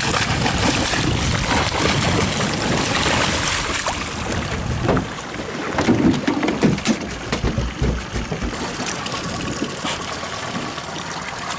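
Wind buffeting the microphone over choppy sea, with water washing; the gusts swell and fall, loudest about six to seven seconds in.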